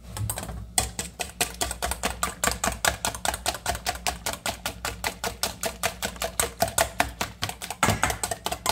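Wire whisk beating eggs in a stainless steel bowl, the wires clicking rapidly against the metal about six times a second.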